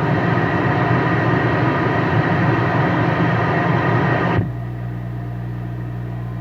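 CB radio receiving another station's dead-key carrier: a steady buzzing hum with hiss over it. About four and a half seconds in the hiss cuts off suddenly and the steady low hum goes on. The buzz is the hum the listener calls a transformer buzz on the signal, which he thinks a ferrite on the power cords may cure.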